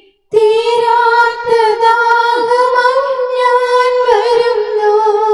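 A woman's voice singing a devotional hymn, holding one long note with a slight waver for about five seconds after a brief break at the start.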